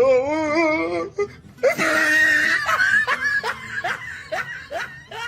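A person laughing hard. It opens with a long wavering cry, then breaks into a run of short rising laughs, about two or three a second, that fade toward the end.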